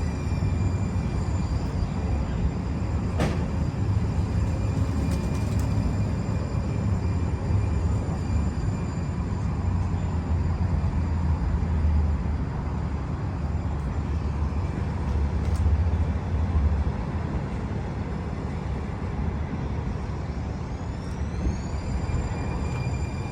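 Running transit vehicle heard from on board: a steady low rumble, with a high electric whine that falls away as the sound begins and climbs again about 21 seconds in, and a couple of short clicks.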